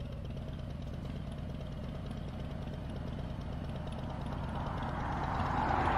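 Harley-Davidson V-twin idling with a steady low rumble, a just-right, moderate sound. Near the end a rising rush of passing traffic builds over it.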